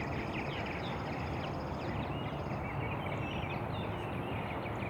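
Purple martins chattering at their colony: many short, quick chirps overlapping, over a steady background hiss. A thin high buzz fades out about two seconds in.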